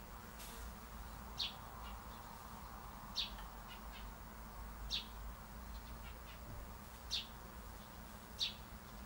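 A bird calling with a short, high chirp, repeated five times at roughly two-second intervals, over a steady faint outdoor hiss.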